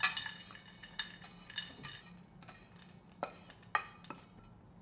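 A spatula scrapes stir-fried dried anchovies and peanuts out of a stainless steel frying pan into a metal bowl. A ringing metal clink comes at the start, then a scatter of sharp clicks and scrapes as the pan and food knock against the bowl, thinning out near the end.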